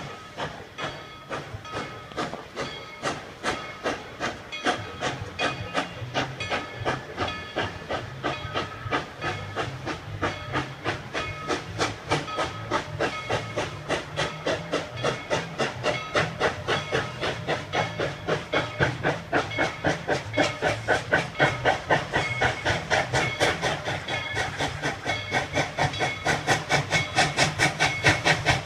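Baldwin narrow-gauge steam locomotive working under load, its exhaust chuffing in an even beat of about three a second over a steady hiss of steam, growing louder as the train approaches.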